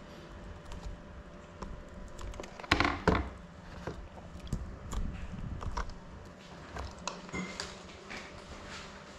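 Hands handling an FPV drone and its radio controller close to the camera microphone: scattered small clicks, with a louder cluster of knocks and rustling about three seconds in. The drone's motors are not running.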